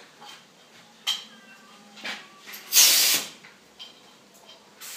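Short bursts of hissing air from a compressed-air line, the loudest about three seconds in and a smaller one about a second in.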